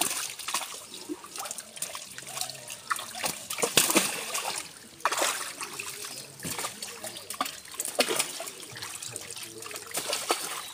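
Shallow water in a seine net churned by hands and a crowded mass of small live fish: irregular short splashes over trickling water, with a louder splash about four seconds in.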